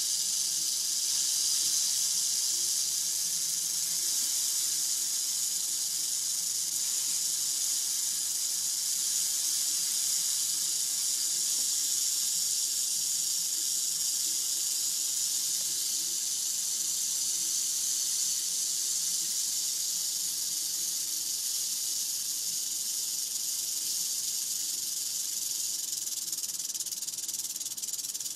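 Mohave rattlesnake rattling its tail in a steady, unbroken high buzz, the species' defensive warning.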